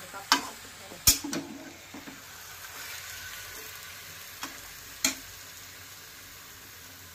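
Flat metal spatula scraping and clanking against a metal kadai while stirring chicken and onions frying in it, with a steady sizzle underneath. There are a handful of sharp clanks, the loudest about a second in and again near five seconds.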